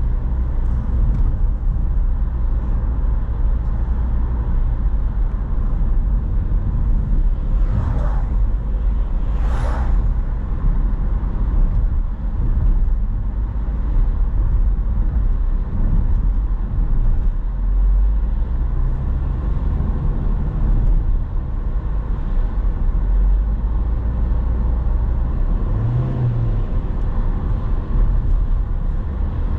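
Car driving along a highway: a steady low rumble of engine and tyre noise, with two brief swishes about eight and ten seconds in.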